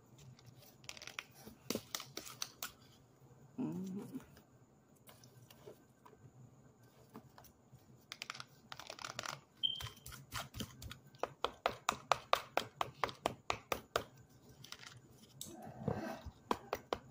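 Packed cornstarch knocking and crumbling out of an upturned plastic Powerade bottle as it is tapped and shaken, with a quick run of hard taps in the middle. The clumps sound hard.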